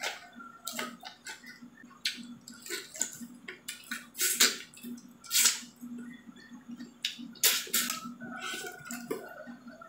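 Close-miked eating sounds from shrimp in cheese sauce eaten by hand: wet lip smacks, finger sucking and chewing, with a few louder sucking sounds midway and near the end.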